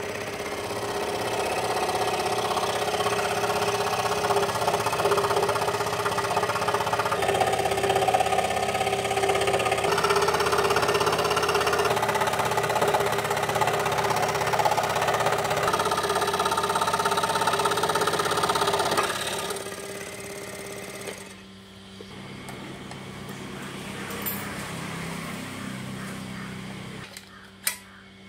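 Electric scroll saw running, its reciprocating blade cutting through a wooden board along a curve. About 19 seconds in the sound drops to a quieter, steadier running.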